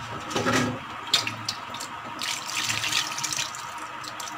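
Water poured from an aluminium pressure cooker into a steel kadhai of onion gravy, splashing and trickling in uneven spurts. There are a few light metal clicks.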